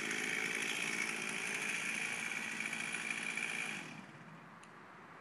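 Two-stroke chainsaw running steadily at high speed, then dropping away about four seconds in, leaving quiet.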